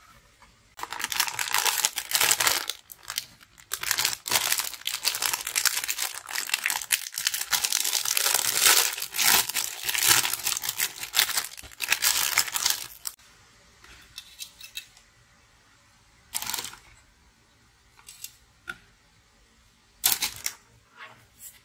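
Thin clear plastic bags crinkling and being torn open as hands pull out plastic model-kit runners, dense and loud for about twelve seconds. After that, only a few short rustles.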